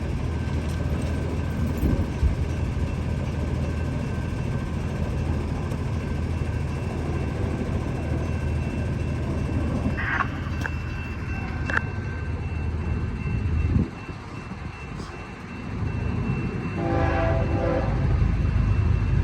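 Diesel-hauled BNSF intermodal freight train approaching, a steady low locomotive rumble. Near the end comes a short horn chord.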